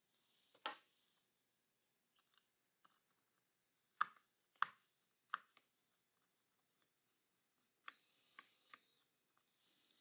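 A few short, sharp clicks and taps, spaced out with near silence between: a screwdriver and tiny screws working against a metal mounting plate on a mini PC. Three taps come in quick succession around the middle and a few lighter ones near the end.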